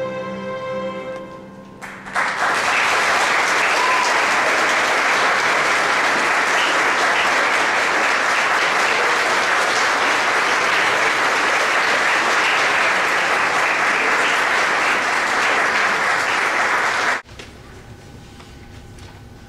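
A string orchestra and piano let their final chord fade out. Then an audience applauds steadily for about fifteen seconds, and the applause stops abruptly near the end.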